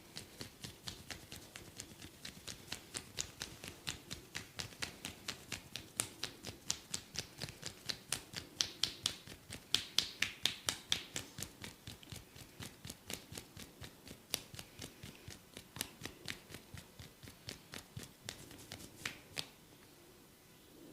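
A barber's hands tapping rhythmically on a person's head in a percussive head massage, about four quick slaps a second, louder toward the middle and stopping shortly before the end.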